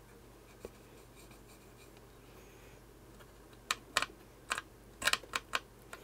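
Cotton swab scrubbing grease off the metal head rail of a stripped-down Apple floppy drive. Faint rubbing at first, then from about halfway a run of about seven sharp scratchy strokes in two seconds.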